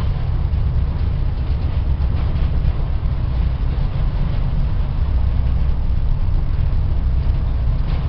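Mine train running steadily through a copper-mine tunnel: a low, even rumble with no change in speed.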